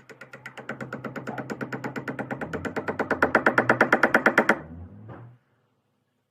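Rapid, evenly spaced knocking, about nine strikes a second, growing steadily louder for about four and a half seconds and then stopping abruptly, over a low steady hum.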